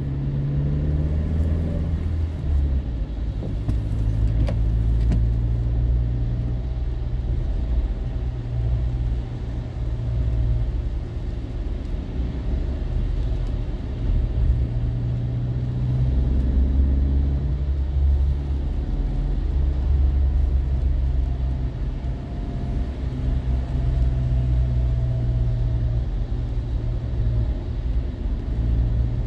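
Car driving on a rain-wet road, heard from inside the cabin: a steady low rumble of engine and tyres.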